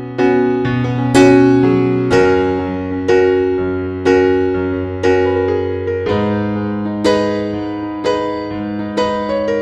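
Background music: a slow electric piano piece, one sustained chord struck about once a second over held bass notes.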